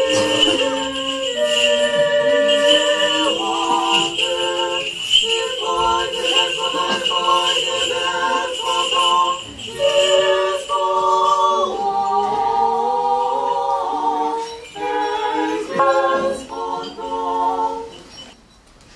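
Orthodox choir singing an a cappella Paschal hymn in several parts, the chords shifting every second or so, with the small bells of a swinging censer jingling through the first half. The singing stops shortly before the end.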